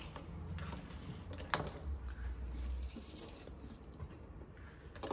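Kitchen knife cutting an onion on a wooden chopping board: a few light taps and clicks, the sharpest about a second and a half in, with quiet handling noise between. Near the end, onion pieces are dropped by hand into the slow cooker's crock.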